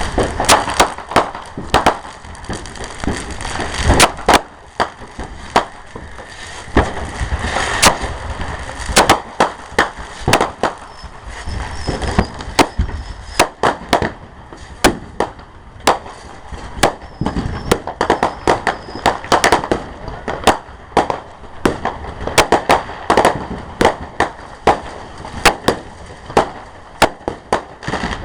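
Fireworks exploding in a rapid, irregular series of sharp bangs and cracks, several a second at times, over a continuous rumble from the display.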